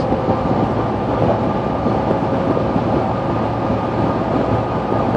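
Steady rumble inside a car cabin, with a faint even hum running through it.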